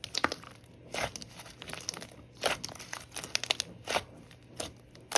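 Slime being squished and pressed by hand, giving irregular sticky clicks and crackling pops.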